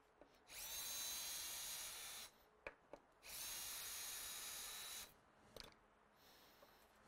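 Festool cordless drill-driver spinning out the screws that hold a routing template to a timber beam: two runs of about two seconds each with a steady whine, a sharp click between them and another after the second.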